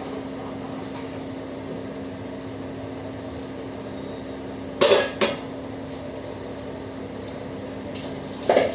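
A steady low hum, with two short metal clinks about five seconds in, a spoon knocking on a steel cooking pot. More clinks near the end as dishes are handled at the sink.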